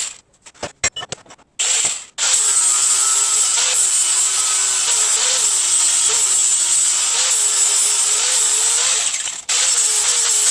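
Power grinder working steel, a steady high whine whose pitch sags and recovers each time the tool is pressed into the work. It cuts out at the start, leaving a few sharp clicks and knocks, cuts back in about two seconds in, and dips briefly near the end.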